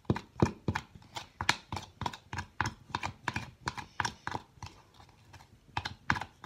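A spoon knocking and scraping in a small clear plastic bowl as glue and activator are stirred into slime: quick clicks, about three to four a second, with a short pause near the end.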